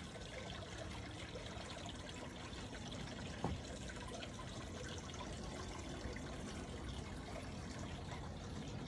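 Water trickling steadily, with one brief click about three and a half seconds in.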